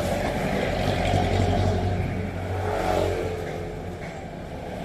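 Passing road traffic: vehicle engines running with a steady low hum, one swelling and fading around the middle.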